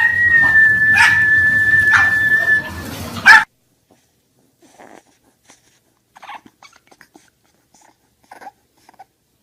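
A dog whining one long, high-pitched, steady note for about three seconds, which cuts off suddenly. After it come only a few faint small sounds.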